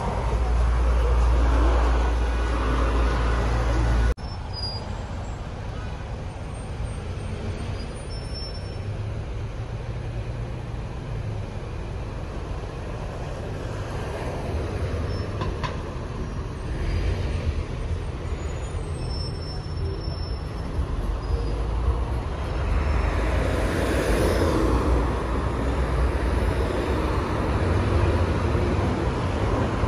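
City street traffic noise: a steady wash of passing cars with a low rumble, dropping abruptly about four seconds in, then building louder in the second half as vehicles pass close by.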